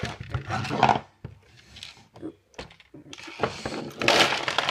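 Hard plastic clattering and rattling as a Lego Bionicle canister is handled and opened and its plastic pieces tumble out onto a table. There are sharp knocks at the start, a few scattered clicks, then a longer, denser rattle near the end.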